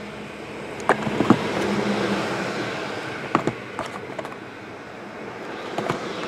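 Shrink-wrapped cardboard trading-card boxes being handled and shuffled on a table: a rustle of plastic wrap and boxes sliding, strongest in the first few seconds, with a few light knocks as boxes are picked up and set down.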